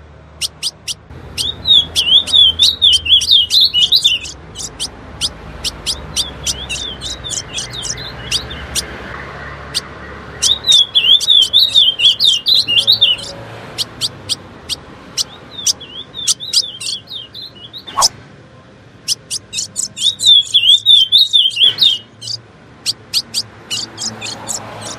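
Female ultramarine grosbeak (azulão) calling: a run of short, sharp chip notes, broken three times by a few seconds of fast, wavering twitter.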